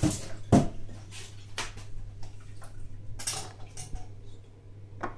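Several short clinks and knocks of a drinking glass and kitchen things being handled on a countertop, the loudest about half a second in.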